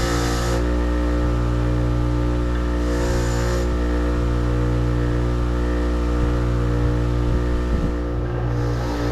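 A steady mechanical hum made of several held tones, with two short bursts of hiss, one about three seconds in and one near the end.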